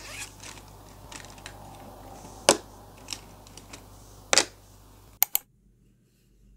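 Stationery being handled at a desk: a soft fabric pencil case rustles open and pens are taken out, with scattered light ticks and two sharp clacks about two and a half and four and a half seconds in. A quick pair of clicks follows just after five seconds, then the sound stops suddenly.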